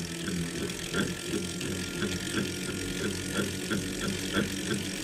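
A machine running with a steady low hum and a rhythmic grinding click about three times a second: the grinding noise of the 'Neo' unit.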